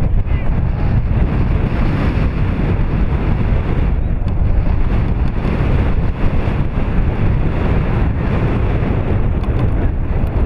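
Wind buffeting the camera microphone: a loud, steady, low rumble.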